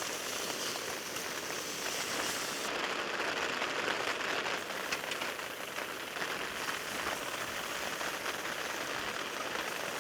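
Heavy rain pattering steadily on tent fabric overhead.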